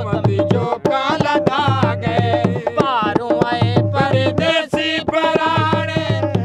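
Punjabi folk song music: a dholak drum beats a steady rhythm under a bending melody line.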